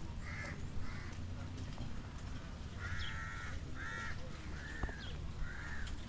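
A crow cawing repeatedly: two short caws in the first second, then four harsher caws about a second apart from about three seconds in, over a steady low background rumble.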